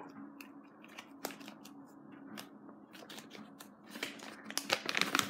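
Paper and foil toy packaging crinkling and rustling as it is handled and torn open by hand: scattered crackles, growing denser over the last second or so.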